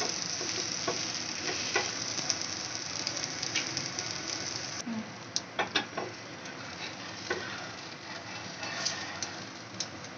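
Onion dosa batter sizzling on a hot iron tawa, a steady hiss that drops suddenly about five seconds in and carries on more quietly, with a few light clicks and scrapes from the spatula against the pan.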